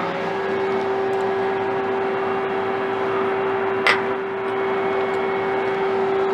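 Steady hum of a CNC lathe standing with its pumps and fans running, with a steady tone in it. About four seconds in there is one sharp metallic click as the knurling tool holder on the turret is handled.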